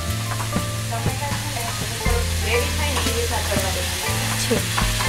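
Chopped tomatoes sizzling in hot oil in a kadhai while a metal spoon stirs and scrapes the pan. Background music with a steady bass plays underneath.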